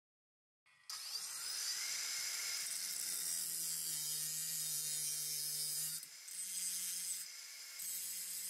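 Angle grinder with a thin cutting disc cutting through the protruding end of a steel bolt: a steady high whine with a hiss of sparks that starts about a second in and eases off briefly twice in the second half.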